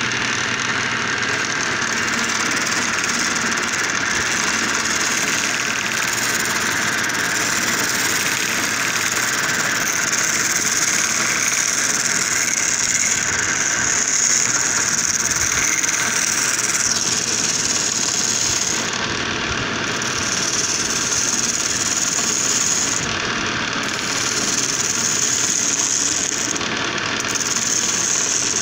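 Electric wood lathe running with a steel chisel cutting a spinning wooden mortar blank: a steady hissing cut over the motor's hum, a light finishing pass that smooths the surface. The cutting hiss drops out briefly a few times in the second half as the tool eases off.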